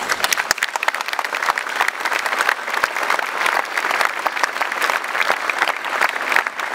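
A large crowd applauding, many hands clapping at once. The applause breaks out suddenly and keeps up at an even level.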